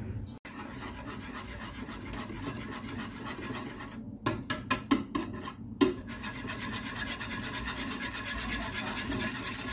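Wire whisk beating an egg and milk custard mixture in a metal saucepan: a fast, steady scraping as the wires rub the bottom and sides of the pan, with a few sharp clicks about halfway through.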